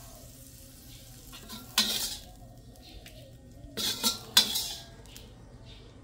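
Metal spatula scraping and clanking against a steel wok while scooping out fried oysters, in three short strokes about two, four and four and a half seconds in, with faint sizzling from the hot wok between them.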